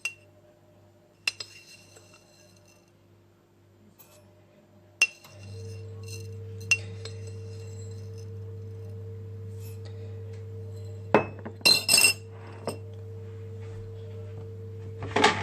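Coffee being made: a cup and spoon clink sharply a few times, and an electric appliance starts about five seconds in and hums steadily. Near the end there is a quick run of clinks and clatter.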